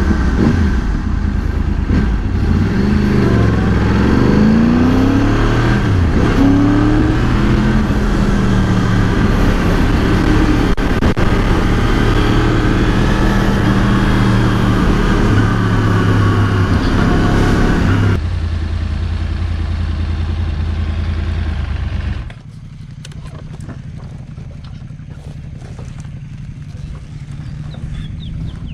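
Motorcycle engine under way, its pitch rising and falling as it is revved and shifted through the gears. About eighteen seconds in it changes abruptly to a steadier note, and a few seconds later drops suddenly to a quieter, even engine hum.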